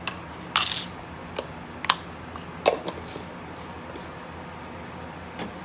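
Kitchen utensils being handled over a steady low hum: a short scrape about half a second in, then a few light clicks and taps.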